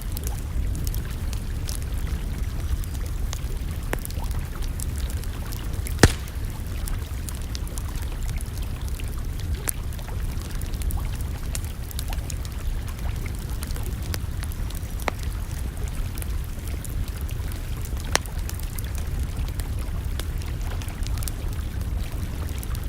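Campfire crackling, with scattered sharp pops: a loud one about six seconds in and another about eighteen seconds in, over a steady low rumble.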